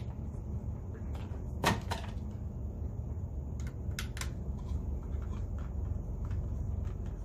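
Clicks and taps from a plastic DJI Spark remote controller and a small driver being handled: two sharp clicks a little under two seconds in and three more around four seconds in, with lighter ticks between, over a steady low hum.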